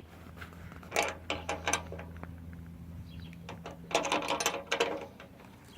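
Ratchet socket wrench clicking in several short bursts as it turns a blind nut installation tool, over a low steady hum that fades about four seconds in.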